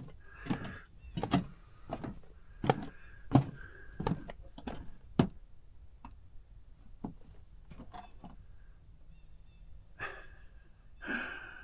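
Footsteps on the planks of a wooden boardwalk, a hollow thud about every two-thirds of a second, growing fainter after about six seconds.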